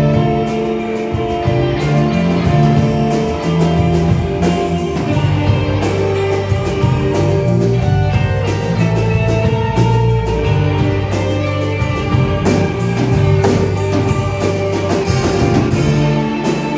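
Music: a song with guitar, a bass line and a steady drum beat.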